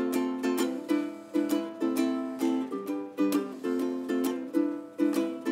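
Solo acoustic ukulele strummed in sharp, syncopated chords, two to three strokes a second, each left to ring briefly before the next, with the chord changing every second or so.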